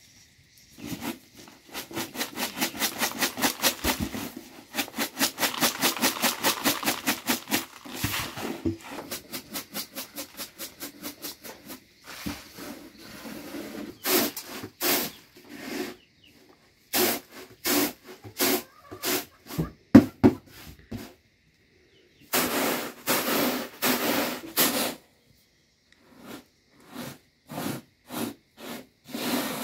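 Corn grits being winnowed in a flat woven bamboo tray: a rapid, rhythmic swishing rattle of grain against bamboo, several strokes a second, coming in spells with short pauses between them.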